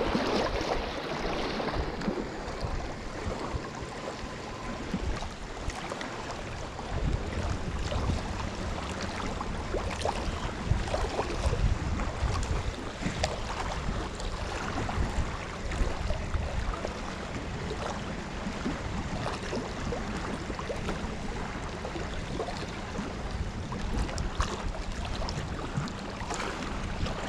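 Small waves lapping and washing against a rocky lakeshore, with wind buffeting the microphone in uneven gusts.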